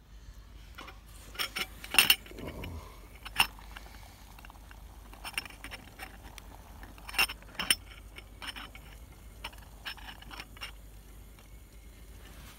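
Metal clinks and knocks from the Crusader cook kit's lidded cooking cup being set on the folding Flexi stove and handled, a string of sharp taps with the loudest cluster about two seconds in and more scattered clinks later.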